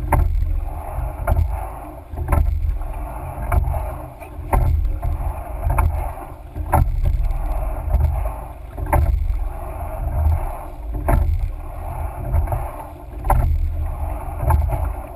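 Rowing in a coxed sweep four: a sharp knock of the oars in their oarlocks comes once at every stroke, about every two seconds, with lighter knocks in between. Under it runs a steady rush of water along the hull and a low rumble.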